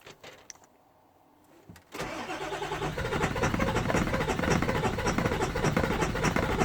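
Starter cranking a Ford 7.3 diesel engine with a fast, even pulsing, starting about two seconds in after a few light clicks; a hard-start (no-start) problem is what is being shown.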